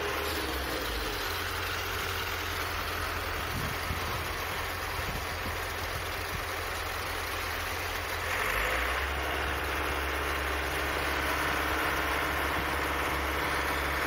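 Concrete mixer truck's engine running steadily while its chute discharges concrete, a steady low hum that grows a little louder about eight seconds in.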